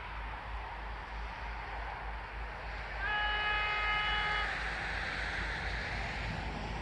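Pesa Elf electric train sounding its horn once, about three seconds in, a steady chord lasting about a second and a half. The train's running noise is heard behind it as a rushing that grows louder afterwards.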